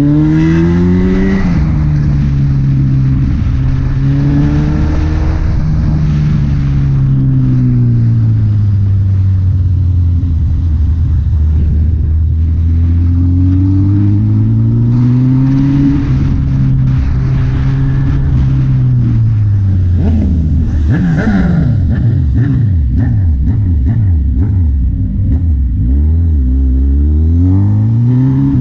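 A vehicle engine running under way, its revs rising and falling slowly over several seconds at a time. About two-thirds through there is a stretch of faster, overlapping rising and falling engine notes.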